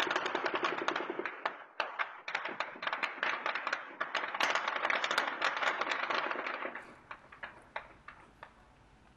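Automatic gunfire: a sustained burst of rapid shots for the first second or so, then scattered shots and short bursts, thinning out and growing faint after about seven seconds. The shooting is fired into the air, tracer rounds arcing up into the night sky.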